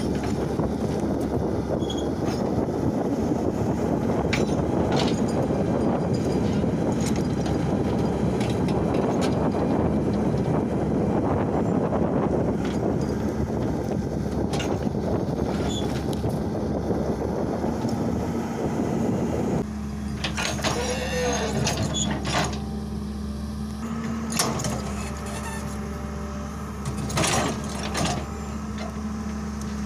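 Long-reach excavator's diesel engine running under load as the boom and bucket scrape and level soil. About two-thirds through, the sound changes abruptly to a thinner, steadier engine hum, with several sharp knocks of stones against the steel bucket.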